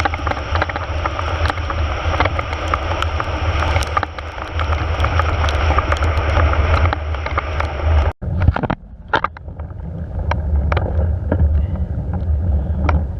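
Wind rushing over the microphone with a heavy low rumble, steady for about eight seconds, then cutting off suddenly into a quieter low rumble with scattered clicks.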